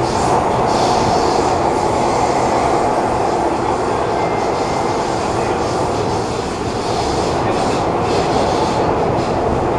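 Interior running noise of a Kawasaki Heavy Industries C151 metro train in a tunnel: a steady, loud roar of wheels on rail with faint hissing in the upper range.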